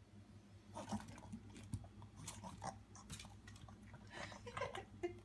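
Yorkshire terrier chewing and lip-smacking on a bite of dog cupcake: faint, scattered wet clicks and crackles in a few short clusters.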